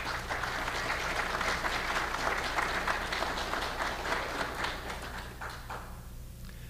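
Audience applause that swells over the first couple of seconds and dies away near the end.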